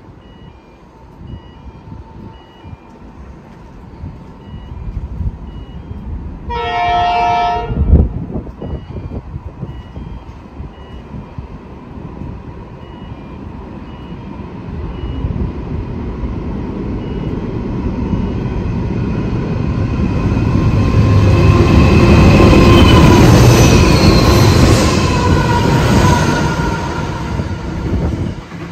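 Freight train led by NR-class diesel locomotives approaching and passing: one horn blast about seven seconds in, then engine and wheel noise building steadily and loudest in the last third as the locomotives go by.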